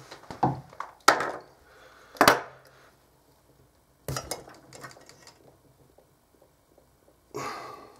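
Handling noise from stripping thick mains wire by hand: a handful of sharp clicks and knocks as the wire and a pair of pliers are worked and set down on a wooden desk, then a short noisy rush near the end.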